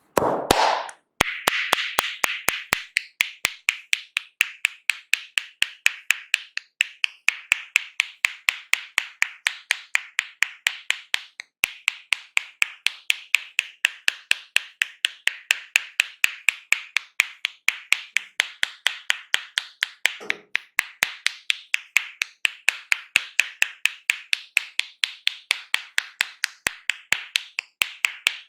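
Percussive hand tapping of a head and shoulder massage: the masseur's hands strike in a fast, steady rhythm of about three to four sharp slaps a second, with a brief break about two-thirds of the way through.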